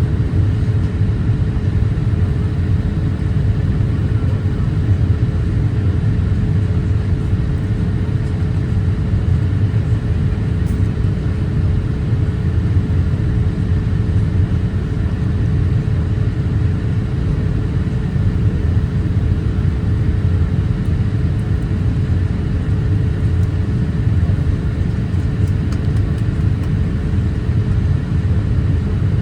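Steady cabin noise inside a Boeing 787-8 airliner in flight: an unbroken low rumble of airflow and engines with a faint steady hum above it.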